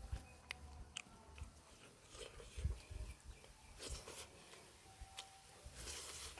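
Faint close-up chewing of chicken liver and gizzard, with scattered wet mouth clicks and a couple of brief noisy sounds.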